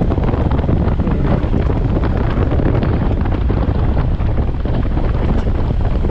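Wind buffeting the microphone of a motorcycle on the move: a loud, steady rush, with the bike's engine running underneath it.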